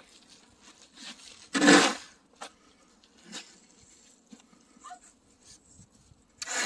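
Snow shovel scraping across pavement and pushing heavy, slushy snow: one loud half-second scrape about a second and a half in, a few softer scrapes after it, and another near the end.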